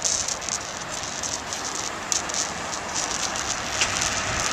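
Long white cane tips tapping and scraping irregularly on a concrete sidewalk as two people walk, over a steady hiss of street traffic that grows a little louder near the end.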